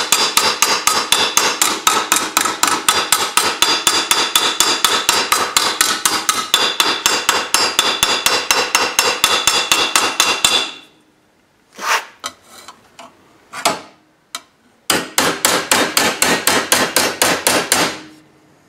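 Hammer beating a sheet-steel patch piece in quick, steady blows with a metallic ring, flattening the metal after shaping it. The blows stop about ten and a half seconds in, a few single knocks follow, and a second run of blows starts about fifteen seconds in and lasts about three seconds.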